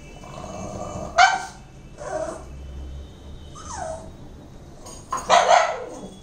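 Pug barking, with shorter yips and a whine between the barks: a sharp bark about a second in, a falling whine near the middle, and the loudest bark near the end.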